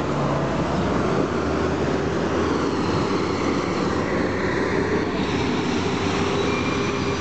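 Diesel engine of a Metalpar Petrohue city bus on a Mercedes-Benz OH1420 chassis, a six-cylinder Mercedes-Benz OM366A, running steadily under load as the bus moves off, mixed with street traffic noise.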